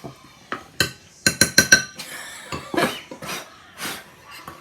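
Spoon clinking and scraping against a mixing bowl as thick cookie dough is stirred, with a quick run of about six ringing clinks followed by duller scraping strokes.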